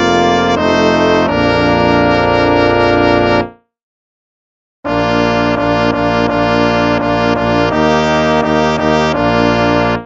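Instrumental hymn music with held, chord-like notes. It fades out about three and a half seconds in, leaves over a second of silence, then starts again abruptly.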